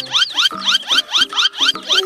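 Children's background music with a rapid, evenly repeating chirpy warble, about four to five short rising-and-falling glides a second.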